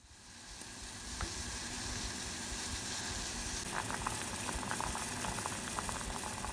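A pot of udon broth with fish cakes boiling: a steady hiss of simmering water, with quick small bubbling pops crowding in about halfway through.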